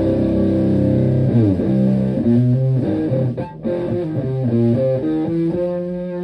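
Stratocaster electric guitar played through an Elk Super Fuzz Sustainar fuzz pedal into a Fender Twin Reverb-style amp. A held fuzzed chord slides into a run of sustaining single notes, then settles on a long held note near the end.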